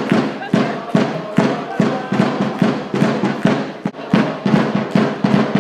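Background music with a strong, fast, steady beat.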